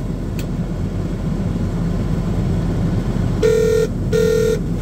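A telephone ringing tone, two short beeps of one steady pitch about three and a half seconds in, as a call to apron control rings through. Under it runs the steady low rumble of the pushback tug's engine.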